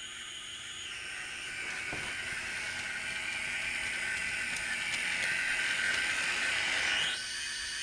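HO scale model train running: a whirring, grinding motor-and-gear sound that grows steadily louder for about seven seconds, then drops off abruptly.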